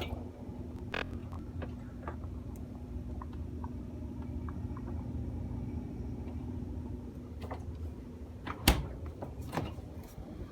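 Refrigerator humming steadily, with a few light knocks or clicks and one sharp knock near the end.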